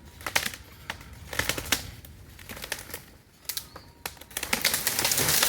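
Dead, rotten tree trunk hung up in another tree being winched backwards: a string of irregular sharp cracks and snaps, then a swelling rush and crash of wood and branches as it comes down, loudest near the end.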